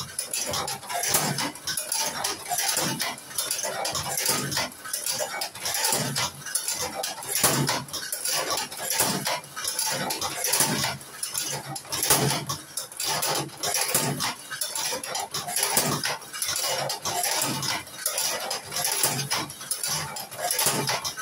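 Tobacco rolling machine being worked stroke after stroke to fill cigarettes: an uneven run of metallic clacks and clatter, about one or two a second.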